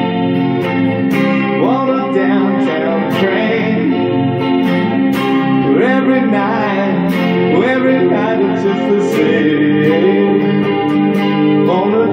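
Live acoustic song: a strummed string instrument keeps a steady rhythm while a voice sings over it.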